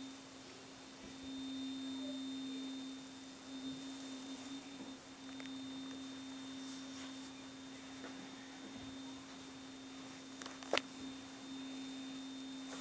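A steady low-pitched hum holding one flat pitch, swelling and fading in strength, with a fainter high whine above it and a single sharp click near the end.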